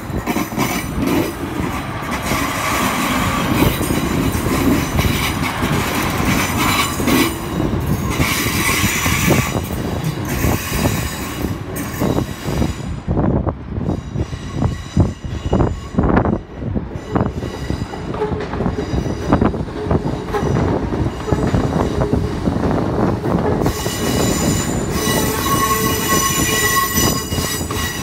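Two-car Class 156 diesel multiple units running through the station throat, their wheels clattering over the points and crossings in rapid knocks. Near the end another train passes close by with steady high-pitched tones.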